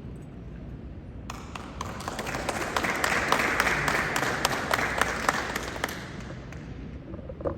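Audience applauding: the clapping starts about a second in, builds, then dies away, with a single short thump near the end.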